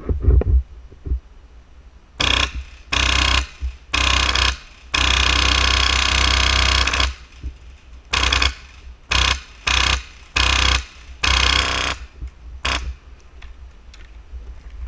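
HPA-powered airsoft rifle, an Airsoft Masada fitted with a Wolverine SMP engine, firing full-auto in about nine rapid bursts. Most are short, and one long burst of about two seconds comes in the middle.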